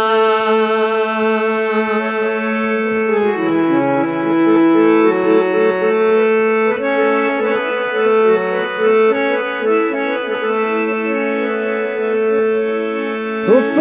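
Instrumental interlude of a Gojri folk song: a reedy, accordion-like keyboard melody of long held notes over a steady drone, with no singing.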